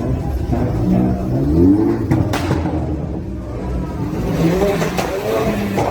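Modified car's engine revving, its pitch rising and falling twice, with a sharp crack about two seconds in.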